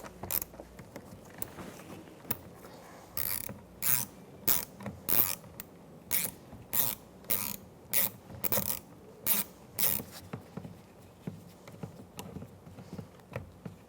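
Hand ratchet with a 5.5 mm socket backing out a door-trim mounting screw: bursts of ratcheting clicks, one stroke about every half second for several seconds, fainter before and after.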